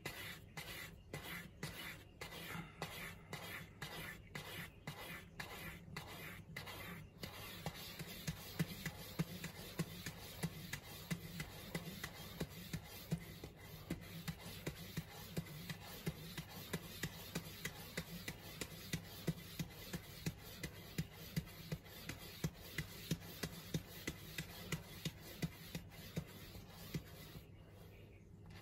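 A cat scratching cardboard with its claws: rhythmic scraping strokes about two a second, separate at first, then running together into a denser rasping with regular louder strokes. The scratching stops near the end.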